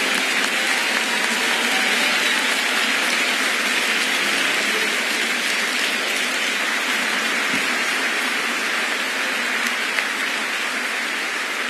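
A large audience in a concert hall applauding steadily, easing off slightly near the end.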